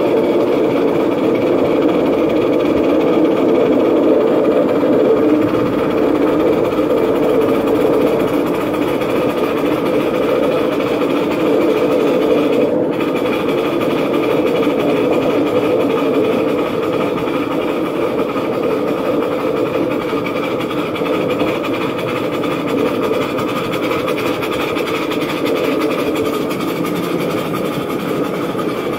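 Coal-fired live-steam miniature locomotive and its riding car running along a garden railway track, heard from on board as a steady, loud running noise of the loco working and its wheels on the rails.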